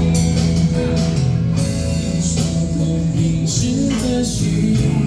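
Live band playing the instrumental intro of a Mandopop song, with guitar and percussion and no vocals yet.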